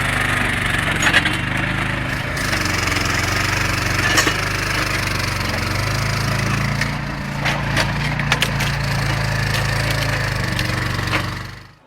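A machine's engine running steadily, with sharp cracks of wood splintering several times over it. The sound fades out near the end.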